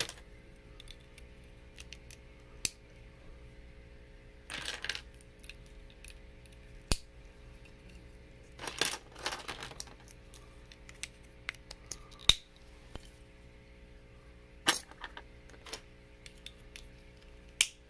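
Plastic Lego Hero Factory parts being handled and set down on a laptop lid: scattered sharp clicks and two short rattles of pieces knocking together. A faint steady hum runs underneath.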